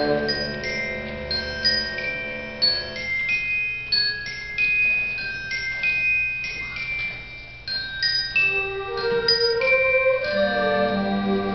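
High school concert band playing: a melody of high, ringing mallet-percussion notes like orchestra bells, over soft held band chords that thin out about three seconds in and swell back near the end.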